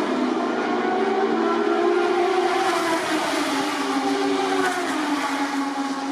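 Moto2 racing motorcycles' Triumph 765 cc three-cylinder engines running on track, their pitch rising and falling as the bikes pass through the corners.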